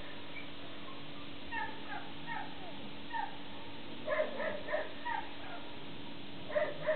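Short, high, falling squeaks or whines from an animal, in scattered clusters, most of them about two seconds in, between four and five seconds, and near the end.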